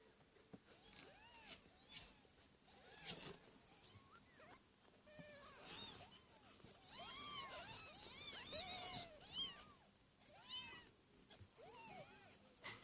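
Litter of week-old kittens mewing: many short, high, squeaky mews, crowding and overlapping about seven to nine seconds in, with a few sharp clicks among them.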